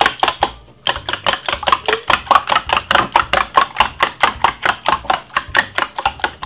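Metal spoon beating raw eggs in a stainless steel bowl, clicking rapidly against the bowl at about seven strokes a second, with a brief pause under a second in.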